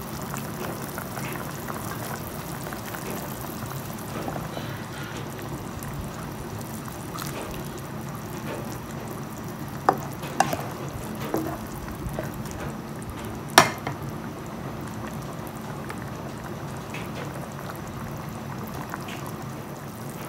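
A pot of fish soup in sour chilli broth bubbling at a steady simmer in a wok. A few sharp clicks come about ten seconds in, and a louder single click a little later.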